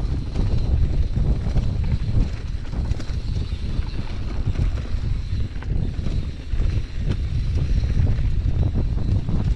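Wind buffeting the microphone of a mountain bike's on-board camera as it rides, with scattered clicks and rattles from the bike over rough trail.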